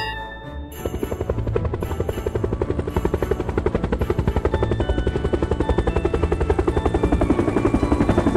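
Cartoon sound effect of a small propeller plane's engine running, a fast, even pulsing drone that starts about a second in, over light background music.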